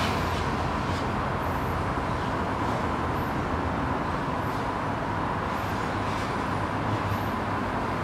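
Steady background noise with a low hum running under it, and a few faint, short high-pitched chirps spread through it.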